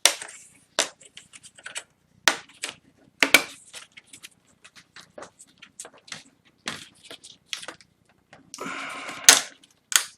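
Plastic retaining clips of a Dell Inspiron 15 3000 laptop's display bezel snapping loose one after another as the frame is pried off by hand: a string of sharp clicks and snaps, with a short rasp of flexing plastic near the end just before a louder snap.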